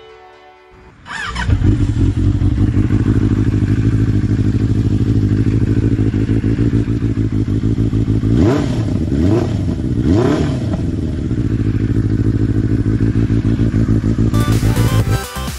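A freshly rebuilt Benelli BN600i inline-four motorcycle engine starts about a second in and idles steadily through an aftermarket carbon-fibre slip-on silencer. About halfway through, the throttle is blipped three times, each rev rising and falling back to idle. Music comes in near the end.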